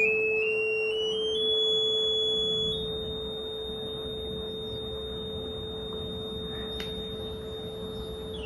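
Two electronic test tones: a steady low tone, and a higher tone that climbs in small steps as its frequency is slowly raised, then holds steady from about three seconds in. The higher tone starts to slide down at the very end.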